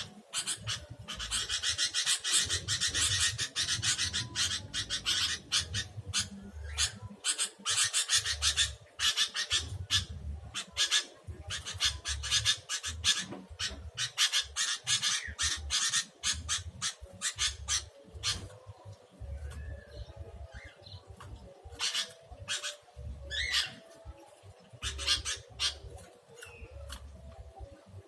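Sooty-headed bulbuls giving harsh, rasping chatter in rapid bursts, with a few short whistled notes about twenty-three seconds in.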